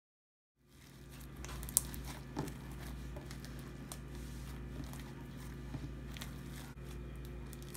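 Floam slime squished and kneaded by hand, its foam beads crackling and popping in irregular small clicks, starting under a second in, with one sharper click near two seconds in. A steady low hum underlies it.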